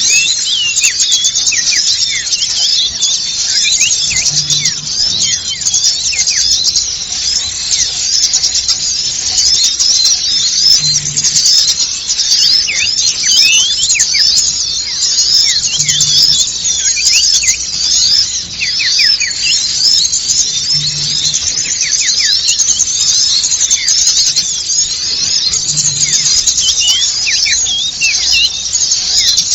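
Bird-lure recording of a dense chorus of small songbirds: many overlapping high-pitched chirps and twitters calling without pause, layered as an excited flock. A faint low pulse repeats about every five seconds beneath it.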